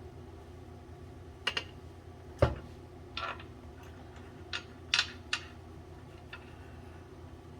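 Scattered metal clinks and knocks from hand tools and bolt hardware being handled on a boiler, about seven in all, with one louder knock about two and a half seconds in, over a steady low hum.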